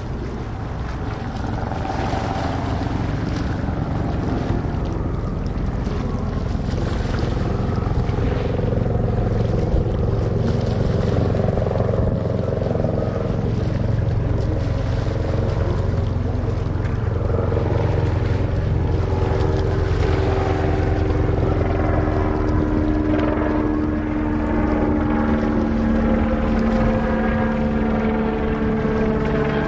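Boat engine running steadily on the water, a low hum with a few slowly drifting tones, with wind on the microphone.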